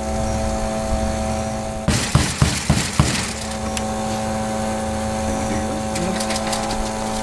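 A front door being pounded by hand as a search warrant is served: a quick series of about six heavy knocks about two seconds in, over a steady machine hum.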